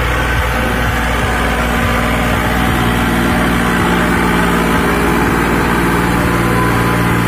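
John Deere 5050D tractor's three-cylinder diesel engine running steadily, with no change in revs, as it pulls a trolley loaded with soil.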